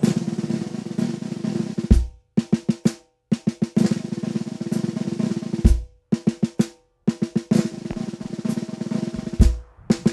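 Percussive music: rapid snare drum rolls and hits over a held low note, with a deep bass drum hit about every four seconds and a few brief drop-outs between phrases.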